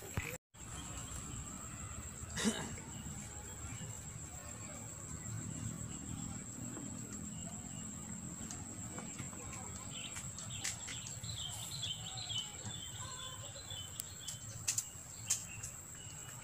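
Outdoor lakeside ambience: a steady high thin tone like an insect, faint bird chirps in the second half, and a few sharp clicks, the loudest about two and a half seconds in. The sound cuts out for a moment near the start.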